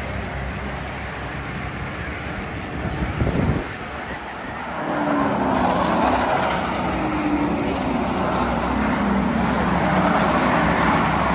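Race cars, Ford Crown Victoria sedans among them, running laps on an oval track. From about five seconds in, cars pass close by, louder, with engine notes falling in pitch as each goes past.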